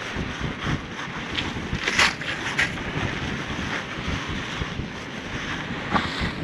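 Crushed ice going into a cooler box on top of packed fish, with a few brief sharp crunches about two seconds in, over a steady rush of wind on the microphone.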